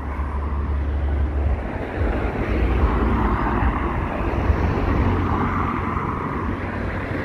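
Rush-hour road traffic streaming past on a busy road: a continuous rush of passing vehicles with a low engine rumble, swelling as vehicles go by about three and five seconds in.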